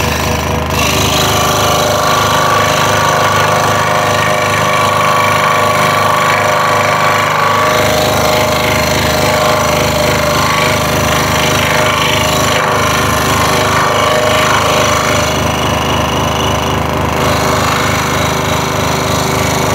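Scroll saw running steadily, its reciprocating blade cutting a wooden jigsaw puzzle piece with a rapid, even chatter. The low part of the machine sound shifts about seven and a half seconds in.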